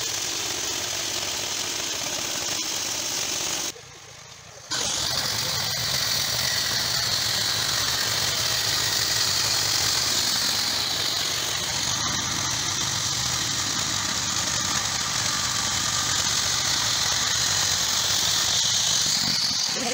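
Portable band sawmill running: its small engine drones steadily while the band blade cuts through a timber beam, with a steady high hiss of sawing. The sound drops out briefly about four seconds in.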